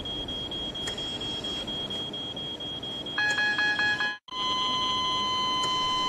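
Bedside patient monitor alarming as a patient's vital signs fail. A high repeating alarm tone is joined just past three seconds by a louder, rapidly pulsing chord of several tones. After a sudden break about four seconds in, a continuous steady tone follows: the flatline alarm of cardiac arrest.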